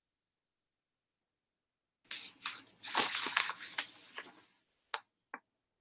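Rustling handling noise from a paperback book being handled close to the microphone. It starts about two seconds in and lasts about two and a half seconds, then two light clicks follow.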